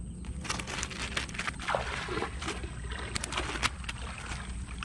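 Shallow creek water splashing and sloshing around a cast net being worked by hand, with a run of small irregular splashes and clicks.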